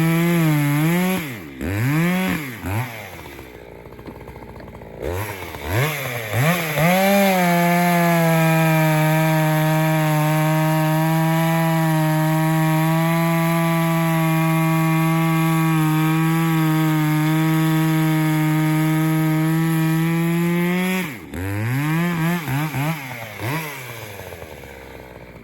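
A 60cc two-stroke professional chainsaw cutting through a log: at full throttle, then dropping back with several quick throttle blips, then revving up and holding a steady pitch through a long cut of about fourteen seconds. Near the end the throttle is released to a few more blips and the engine note fades.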